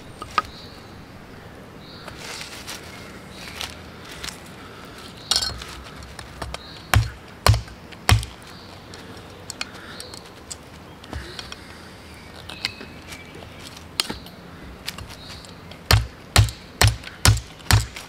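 A billhook chopping into a branch lying on the ground, sharp woody strikes: three about seven seconds in, then a quicker run of about six near the end, roughly two or three a second. Birds chirp faintly between the strikes.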